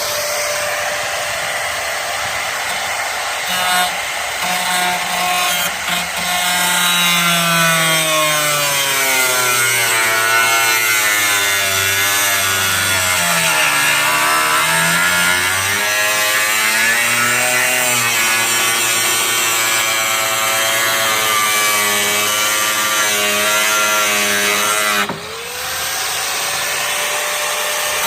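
A power tool cutting, its motor whine sagging and wavering in pitch as it is pushed into the work. About 25 seconds in it briefly lets off, then spins back up to a steady, higher whine.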